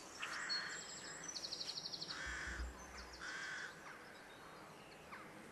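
Faint outdoor birdsong: three harsh caws about a second apart, and a brief rapid high trill from a small bird.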